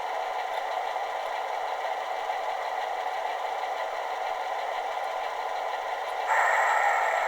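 Model diesel locomotive sound from a Soundtraxx Tsunami decoder playing a Fairbanks-Morse prime mover through the C-Liner's onboard speaker, a steady engine sound with no deep bass. Near the end a louder sound with several steady pitches cuts in suddenly.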